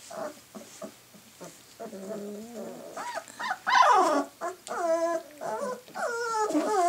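Bernese Mountain Dog puppies, three to four weeks old, growling and whining as they wrestle and mouth each other in play. A low growl about two seconds in gives way to a run of high, whiny yelps that fall in pitch, the loudest about four seconds in.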